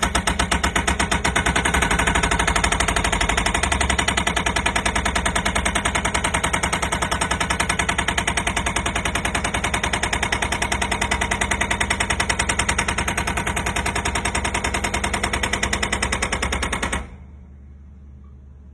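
THOR TH50S silenced hydraulic pile driver hammering a steel pile, a rapid, even train of blows several times a second. The hammering stops abruptly about a second and a half before the end, leaving a low steady hum.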